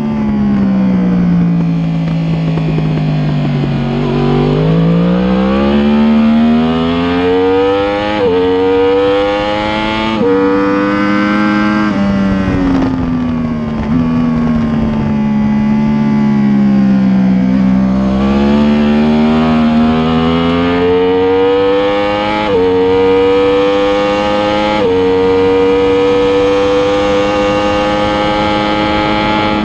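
2015 Yamaha R1M's crossplane inline-four at full race pace. The engine note falls over the first few seconds as the bike slows for a corner, then climbs through four quick upshifts, each a sudden drop in pitch. It falls again under braking and climbs through three more upshifts into 5th gear near the end.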